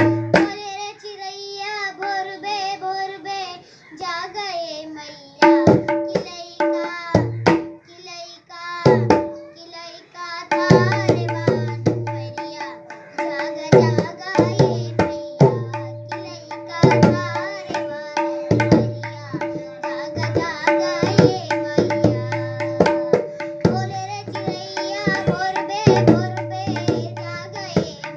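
A young girl singing a devotional song (bhajan) to tabla accompaniment. The tabla joins about five seconds in with scattered strokes, then from about ten seconds in keeps a steady rhythm of ringing treble-drum strokes and low bass-drum strokes under the voice.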